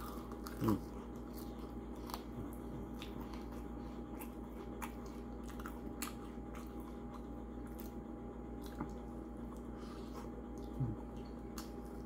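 Close-up chewing and biting of breaded fried chicken wings: soft wet mouth sounds and scattered small clicks as meat is bitten and pulled from the bones, over a steady background hum. There is a short voiced sound about a second in and another near the end.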